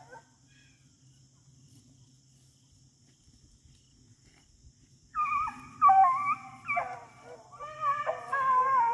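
A pack of beagles starts baying about five seconds in, several hounds giving mouth at once in overlapping, wavering howls: the hounds are running a rabbit on scent.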